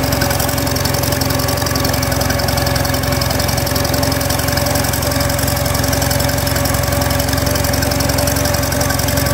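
Vintage farm tractor's gasoline engine running steadily, heard from the driver's seat.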